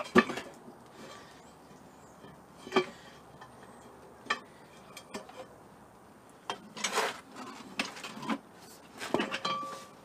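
Scattered metal clinks and knocks of tools and steel parts being handled, a second or more apart, with a short scrape about seven seconds in.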